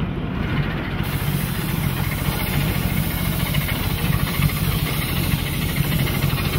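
Quarter-scale live steam train running: a steady rumble of the cars rolling on the 9-inch gauge track, with a hiss coming in about a second in.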